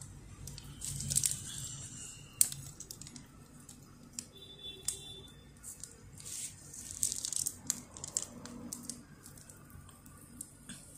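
Plastic piping bag crinkling and rustling in the hands as it is squeezed to pipe icing through a 2D nozzle, with scattered soft clicks.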